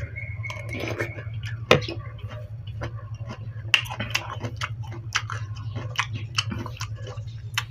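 A person chewing and crunching food close to the microphone, with many short sharp crackles and clicks, over a steady low hum.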